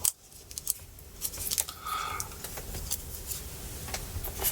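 Scattered light clicks and taps of small tools and parts being handled on an opened laptop, with a brief higher tone about two seconds in.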